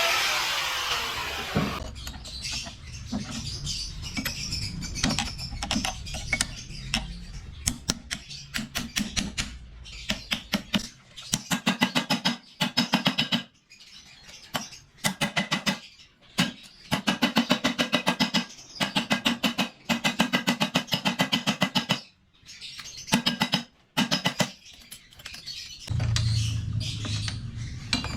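Bursts of rapid, evenly spaced mechanical clicking, about ten a second, stopping and starting every few seconds, from tool work in a workshop.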